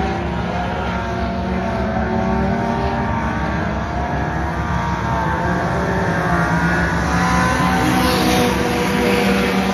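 Several race cars running laps on a dirt oval, their engines droning together at speed. One car passes close about eight seconds in, adding a louder rush of engine and tyre noise.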